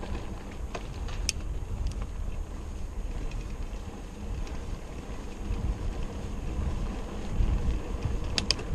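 Wind buffeting the microphone of a camera on a moving bicycle, heard as an uneven low rumble. There is a sharp click about a second in and two more close together near the end.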